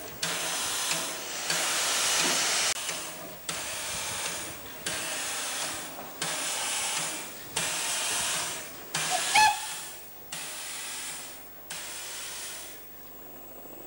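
Steam hissing from the standing NSWGR C30 class tank locomotive 3112 in regular bursts, about one every second and a quarter. About nine and a half seconds in a brief rising squeal cuts through, the loudest moment, and the hissing dies away shortly before the end.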